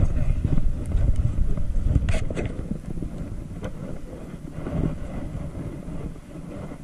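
Wind buffeting the microphone, a heavy low rumble that eases off through the second half, with a few short crunching clicks about two seconds in.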